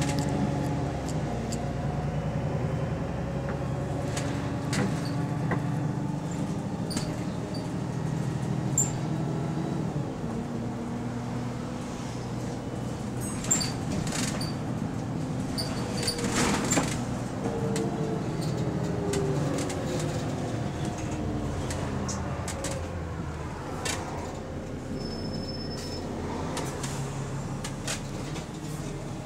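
A bus's engine and drivetrain heard from inside the passenger saloon while driving. The engine note rises and falls as the bus speeds up and slows, with scattered rattles and clicks from the fittings.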